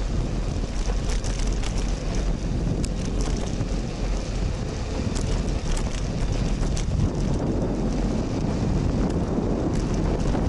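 Wind buffeting the microphone of a bicycle-mounted action camera while riding, a steady low rumble with scattered light ticks and rattles.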